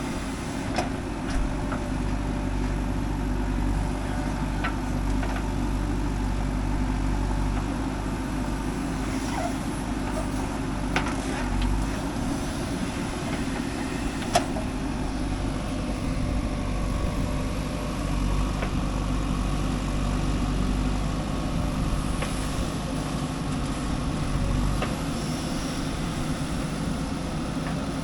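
Diesel engine of a JCB 3DX backhoe loader running steadily while it works, rising and falling a little in level, with a few short sharp knocks, the loudest about halfway through.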